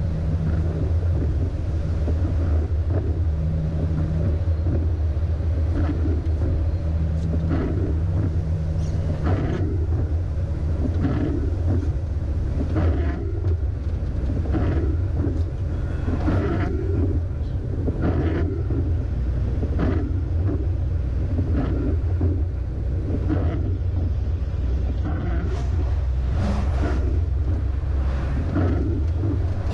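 MAN LE280B 4x4 truck's diesel engine running steadily at highway cruising speed, heard from inside the cab with rumbling road and tyre noise on a wet road and irregular knocks and rattles from the cab. The engine note drops about ten seconds in.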